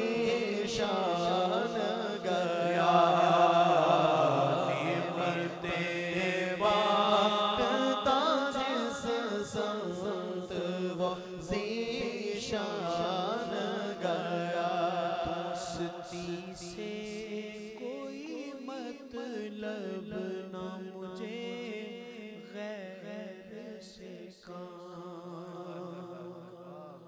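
Unaccompanied devotional naat singing through a PA: a man's voice draws out long, wavering notes without words over a steady hummed drone from backing singers. It grows gradually quieter toward the end.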